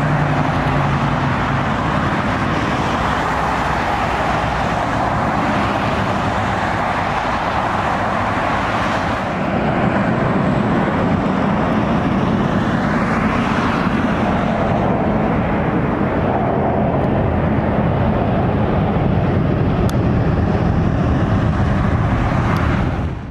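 Jet engines of landing airliners, heard as a loud steady noise. About nine seconds in it steps up to a Boeing 757-300 on final approach, whose engine whine rises and falls once, and the sound cuts off suddenly at the end.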